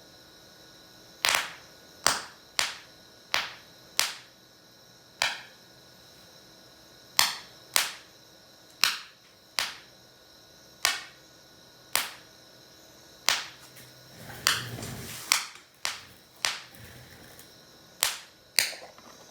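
Small sharp pops, about nineteen at uneven spacing of roughly one a second, as gas bubbles from a water electrolysis cell reach a torch flame and ignite one by one. A longer rushing noise about fourteen seconds in.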